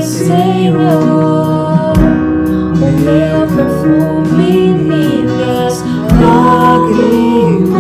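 Worship song played on strummed acoustic guitar with a singing voice holding long, gliding notes.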